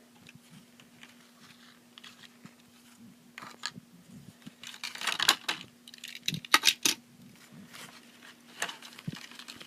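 Clicks and rustles of diecast packaging being handled, in short clusters after a few quiet seconds, over a faint steady hum.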